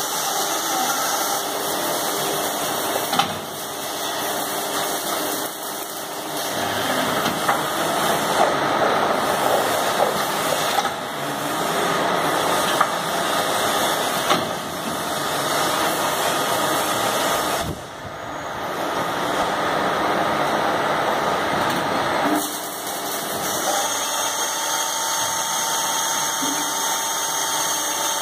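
A linear drilling machine running: motors and drilling heads working through tube stock with a steady machine noise. The noise changes character every few seconds as the machine moves through its cycle.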